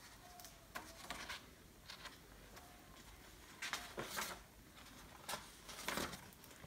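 Paper pages of a book being turned and handled: soft, faint rustles in short bursts, the loudest about four seconds in and again near the end.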